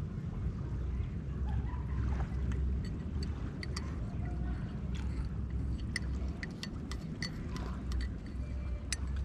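Shallow seawater lapping and splashing among rocks against a concrete edge, with many small sharp ticks and drips from about three seconds in, over a steady low rumble of wind on the microphone.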